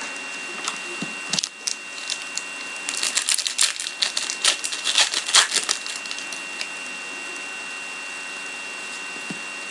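Trading cards and their packaging being handled: a run of crisp crackles and clicks, densest around the middle, then only a steady background hiss with a faint high tone.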